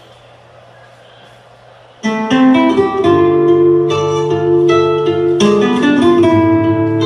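Music: after a quiet lead-in of about two seconds, a guitar piece with quick plucked acoustic-guitar notes over a steady bass line comes in loudly.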